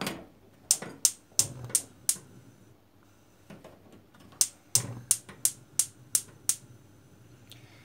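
Gas stove's spark igniter clicking as the burner is lit: sharp clicks about three a second, in two runs with a short pause between.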